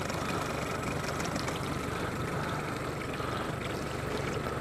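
Small 8 hp Mariner outboard motor running steadily at trolling speed: an even low hum with a faint steady whine above it, quiet for an outboard.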